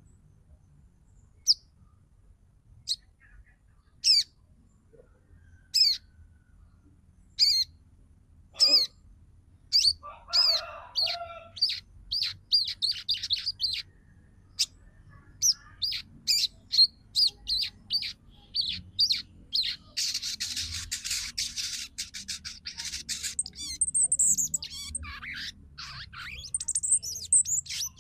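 Female sogon (crested jay) calling: short, sharp, high chirps, spaced well apart at first and then coming in quick succession. A rapid rattling chatter about two-thirds of the way through is followed by longer sliding notes. This is the female's call to males, used to set male birds singing and bring them into breeding condition.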